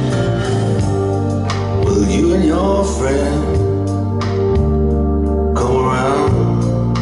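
Organ-led music played back through a vintage Technics SU-7700K stereo amplifier, with sustained chords over a steady bass line that changes every couple of seconds.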